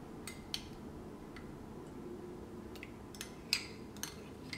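Faint, scattered clicks and taps of glassware as soft butter is tipped from a small glass bowl into a glass mixing bowl, about eight light ticks in all, the sharpest about three and a half seconds in.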